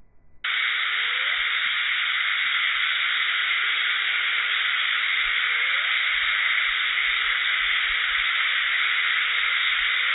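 Loud, steady static-like hiss with no deep or very high part, switching on abruptly about half a second in and cutting off just as suddenly near the end.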